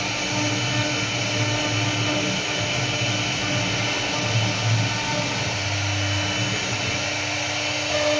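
CNC wood router running steadily, its spindle motor giving a constant whine over a rushing noise.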